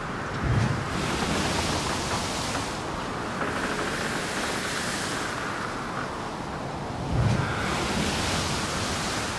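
Kayak paddle strokes swishing and splashing through river water, the hiss swelling and fading every two to three seconds. Wind knocks on the microphone twice, about half a second in and again about seven seconds in.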